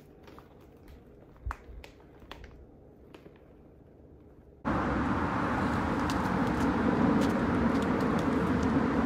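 A few faint clicks and taps over a quiet background, then about four and a half seconds in an abrupt jump to a loud, steady rush of vehicle noise.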